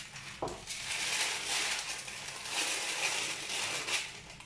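Baking paper rustling and crinkling as it is gathered up around a pile of warm toasted nuts, the nuts shifting inside it, in two spells of crackly rustle. A short knock about half a second in.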